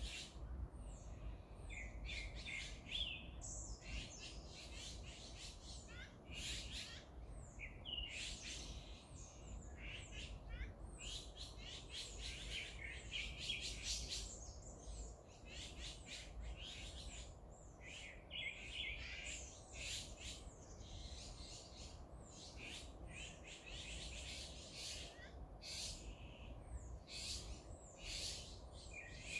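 Several wild birds chirping and calling over one another in a dense, unbroken chorus, over a steady low rumble.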